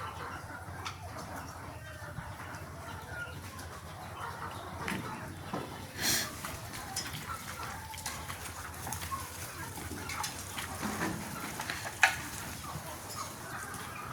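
Desi chickens clucking and calling in short scattered notes. There is a brief loud burst about six seconds in, and a single sharp click or knock about twelve seconds in.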